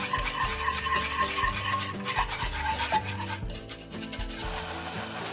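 Wire whisk scraping and rattling against a saucepan as it stirs glutinous rice flour into water for a rice-flour paste. The whisking eases off after about three and a half seconds.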